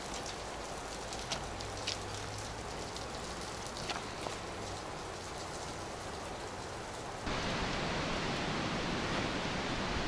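Steady hiss of water with a few light ticks. It turns suddenly louder and fuller about seven seconds in.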